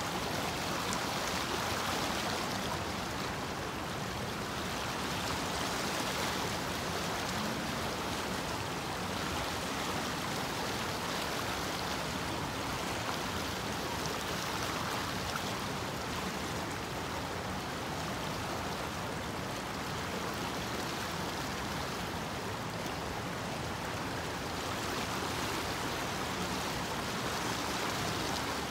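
Small stream's water rushing steadily, an even wash of running-water noise.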